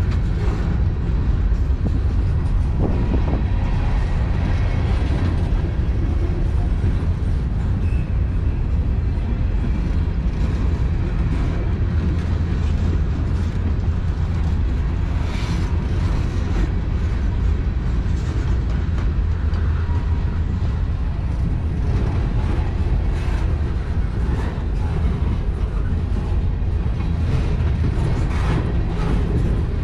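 A long manifest freight train of boxcars and covered hoppers rolling slowly past: a steady low rumble of steel wheels on rail, with scattered clicks and clanks.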